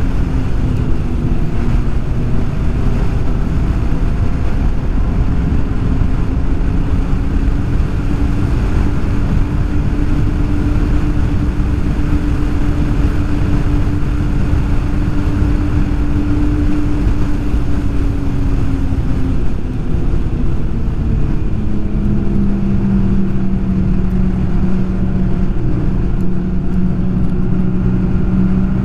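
Snowmobile engine running at a steady trail-cruising speed under the rumble of the track and wind. Its pitch drops a step about two-thirds of the way through as the sled eases off, then holds steady again.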